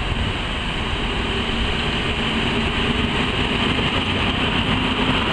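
Fiat ALn 668 diesel railcars pulling out and passing close by: a steady diesel engine hum over the rumble of wheels on the rails, growing slightly louder.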